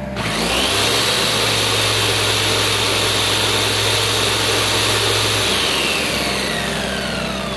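Black & Decker jigsaw switched on: its motor whine rises as it spins up, holds steady, then winds down about five and a half seconds in. Under it runs the small Harbor Freight Tailgator generator's engine, loaded by the saw so that its output frequency sags.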